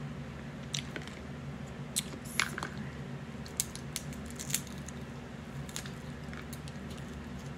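Cooked crab leg shells being cracked and pulled apart by hand: a scattering of short, sharp cracks and snaps over a steady low hum.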